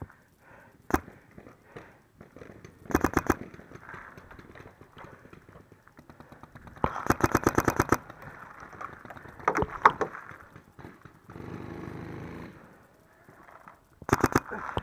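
Paintball marker firing in rapid bursts of sharp pops: a short burst about three seconds in, a longer string of about a dozen shots a second around seven seconds in, and another short burst near the end, with a few single shots between.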